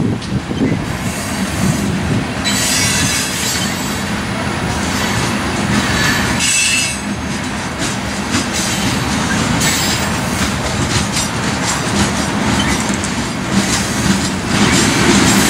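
Loaded coal cars of a freight train rolling past, their steel wheels clacking steadily on the rails, with a brief high wheel squeal about six and a half seconds in.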